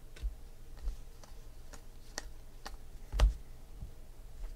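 Glossy trading cards being handled and set down on a stack: a string of light clicks and taps about every half second, with one louder knock a little past three seconds in.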